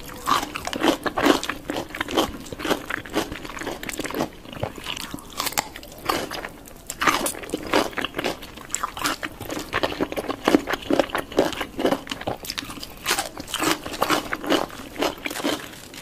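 Close-miked ASMR eating: a person biting and chewing chicken, with irregular crunchy bites in quick succession.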